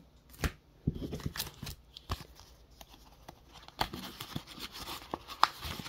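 Paper shipping envelope and plastic card holders handled by hand: irregular rustling, crinkling and short clicks, starting about half a second in.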